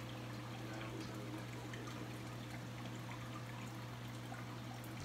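Reef aquarium water trickling and pouring steadily, over a steady low hum.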